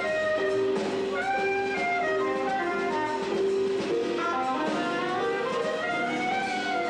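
A live jazz combo playing, with a soprano saxophone carrying quick melodic runs over keyboard, upright bass and drums.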